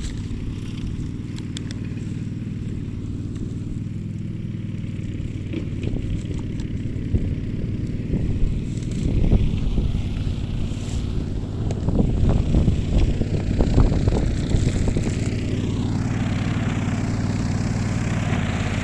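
Small petrol engine running steadily throughout, with louder, rougher stretches about two-thirds of the way in and a high whine rising and falling near the end.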